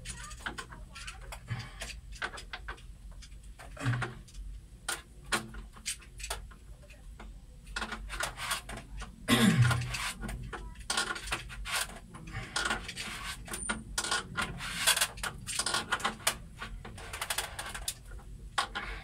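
Irregular clicks, taps and light clatter of hand work on solar battery wiring: tools and hardware being handled over a low hum. Two brief low voice sounds break in, about 4 and 9 seconds in.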